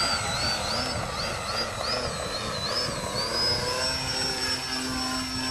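Motor and propeller of a radio-controlled model plane whining, the pitch swinging up and down about twice a second as the throttle is worked, then holding a steady higher note from about halfway through.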